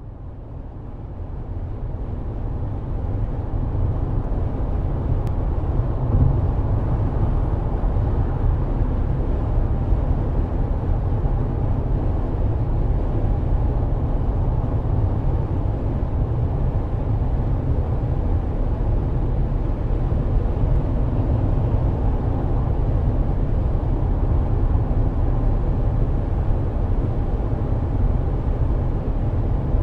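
Steady low rumble of a car driving, heard from inside the cabin: engine and road noise. It fades in over the first few seconds.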